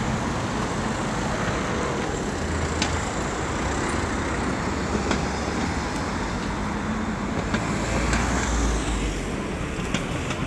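Road traffic: a steady noise of vehicles passing on the street, with a low engine rumble that swells about eight seconds in.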